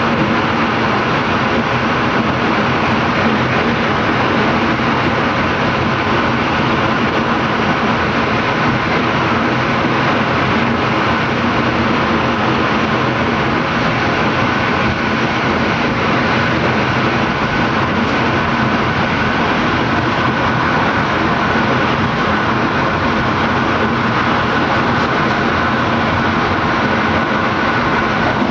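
Train running at steady speed, heard from inside the last car: continuous running noise of wheels on rails, with a faint high whine from about halfway through.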